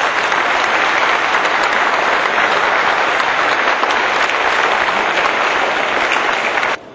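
Audience applauding steadily, a dense clapping that cuts off suddenly near the end.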